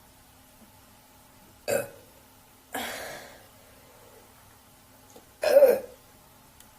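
A young woman burping out loud on purpose, three separate burps, the last about two-thirds of the way in the loudest.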